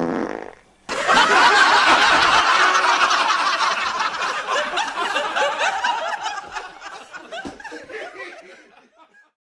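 A short fart, then a crowd laughing for about eight seconds, fading out near the end.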